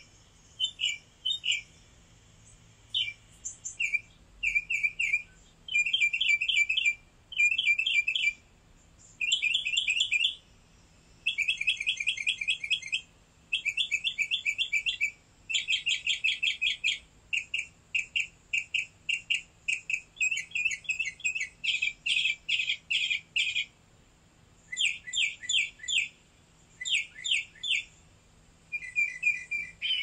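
Small songbird chirping in quick runs of short high notes, bout after bout with brief pauses between.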